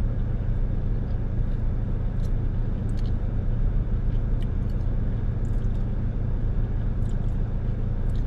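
Steady low rumble of a parked car running, heard inside the cabin, with a few faint mouth clicks from chewing a sticky fruit jerky.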